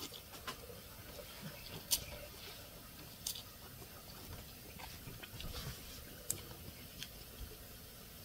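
Person eating noodle soup from a paper cup with a plastic fork: slurping and chewing noodles, with about half a dozen scattered sharp clicks.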